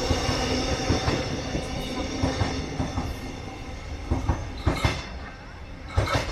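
Suburban electric train running through the station: a steady whine under irregular clacks of the wheels over rail joints. It slowly fades as the train moves away.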